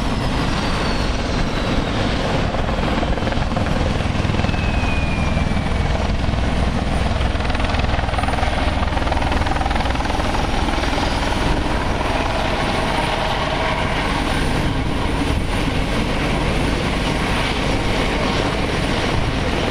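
Eurocopter EC120 Colibri helicopter coming in and hovering low over the pad to land: steady, close rotor and turbine noise with no break.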